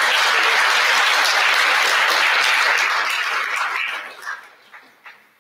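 Audience applauding, steady at first, then dying away about four seconds in.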